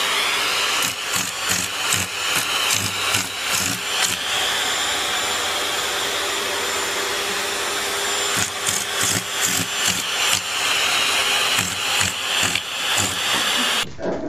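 A small motor running steadily with a rushing, airflow-like noise and a steady hum. It is broken by irregular clicks and knocks, in clusters over the first few seconds and again in the second half, and it cuts off abruptly near the end.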